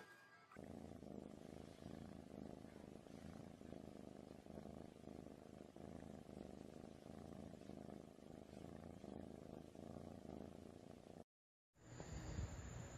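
A domestic cat purring steadily and faintly, a low rumble with an even pulse. It cuts off about eleven seconds in, and after a brief silence a different faint low hum begins.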